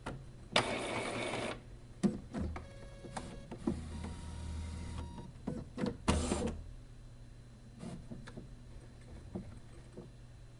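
A small machine clicking and whirring in short bursts, with a steady motor hum in the middle stretch.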